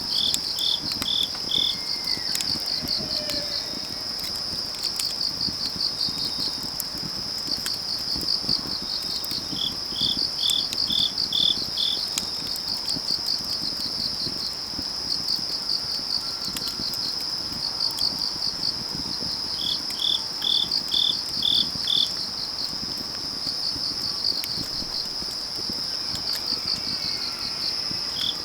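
Autumn-night field crickets trilling steadily and high, with another insect chirping in runs of five or six notes about every ten seconds. Faint crackles of a wood fire come through underneath.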